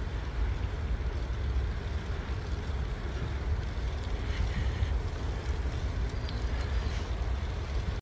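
Steady low rumble of wind buffeting the microphone of a camera riding on a moving bicycle.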